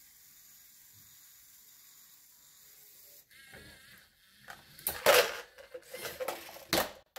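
LEGO robot's motors running and plastic parts clicking and clattering as its grabber arm lifts a small plastic trash can up the track and tips it over the container, starting about three seconds in after faint hiss. A few sharp knocks, the loudest about five seconds in, come as the can swings over and turns upside down.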